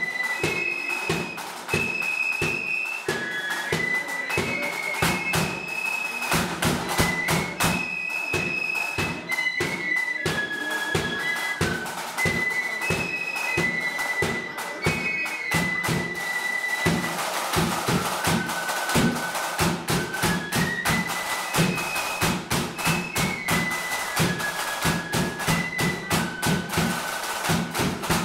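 Marching flute band playing a tune: flutes carry a high, stepping melody over a steady beat of side drums and a bass drum.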